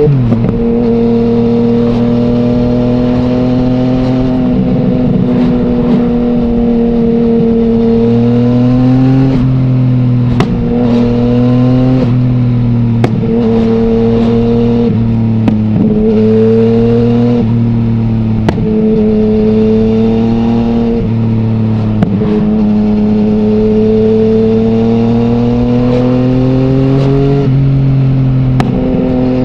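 A 2020 Yamaha MT-09's 847 cc inline-three engine running through an Akrapovic full-system exhaust without its dB killer, while the bike is ridden. The engine note climbs slowly and then drops sharply again and again as the throttle is rolled on and off, and short sharp cracks are scattered through it.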